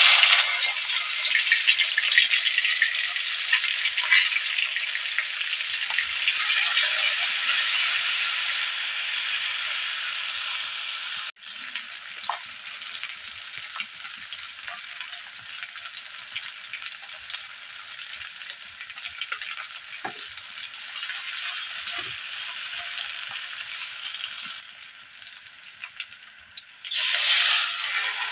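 Pounded chilli-garlic and belacan paste sizzling in hot oil in a steel wok: a loud sizzle starts suddenly as the paste goes in and slowly eases. It drops abruptly about eleven seconds in, with a spatula scraping and tapping the wok as the paste is stirred, and swells again near the end.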